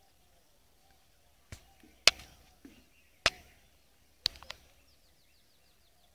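Sharp, separate knocks from a bamboo-handled fishing spear being jabbed into the water and the brushy bank, five or six in all, the loudest about two seconds in. From about halfway a bird's faint, quick, high chirps repeat.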